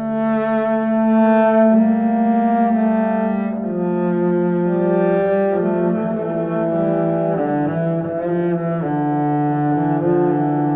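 Background music played on low bowed strings: a slow melody of long held notes, each changing every second or two.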